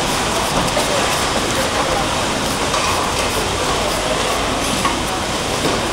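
Steady market din: a constant noisy bustle with indistinct voices in it.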